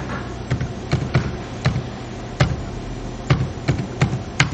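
Computer keyboard keys pressed one at a time while a mobile phone number is typed in: about nine separate sharp clicks at an uneven pace.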